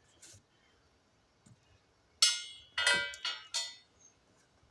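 Metal clanking as the mower's grass-bag frame is handled: one sharp clank a little over two seconds in, then three more in quick succession, each ringing briefly.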